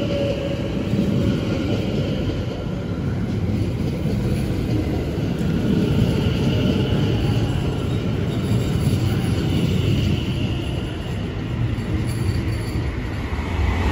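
Class 730 electric multiple unit pulling out of the platform and running past close by: a steady rumble of wheels on rail with a faint steady whine above it.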